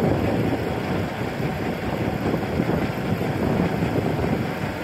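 Steady rumble of highway traffic as a heavy truck approaches, with wind buffeting the microphone.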